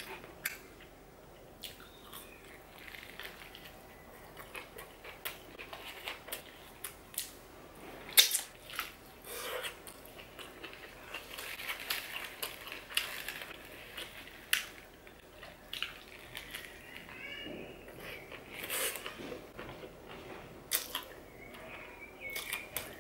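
Close-miked eating of a doner wrap and fries: chewing with frequent sharp mouth clicks and smacks, and the foil-and-paper wrapper rustling, busiest around the middle as the wrap is bitten into.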